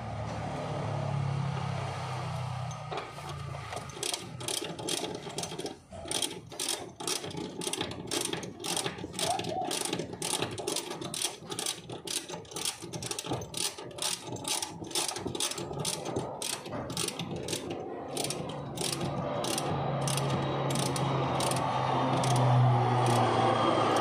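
Ratchet wrench clicking at a steady pace, about two clicks a second, as it turns the seat belt's lower anchor bolt. The clicking starts a few seconds in and stops shortly before the end.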